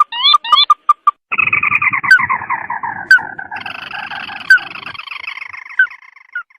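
Bird-trapping lure recording of a bird call. A few quick rising whistled notes come first, then about a second in a long, slowly falling chattering call with a rough rattle, which thins out near the end.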